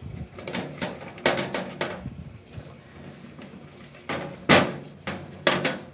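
Cauliflower florets dropped by hand into a glass pot of boiling soup: a series of separate plops and light knocks, the loudest about four and a half seconds in.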